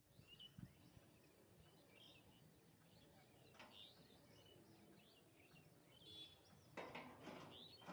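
Faint birds chirping, many short repeated calls, over near silence; a faint hiss of background noise comes up near the end.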